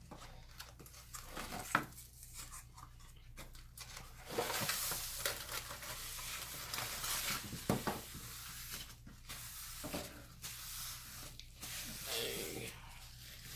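Food packaging being handled: paper and foil wrappers and containers rustling and crinkling, busiest in the middle stretch, with a few sharp clicks and knocks.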